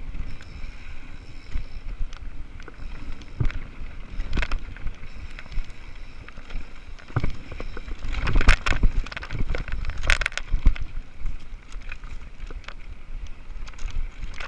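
Mountain bike rolling down a dirt trail: tyres rumbling over the ground with knocks and rattling from bumps and rocks, loudest in two rough stretches about eight and ten seconds in. Wind on the microphone.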